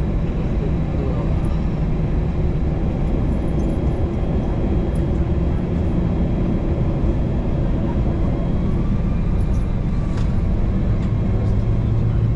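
Airbus A321 cabin noise heard from inside the cabin: a steady rumble from the running jet engines, with a few faint clicks and rattles.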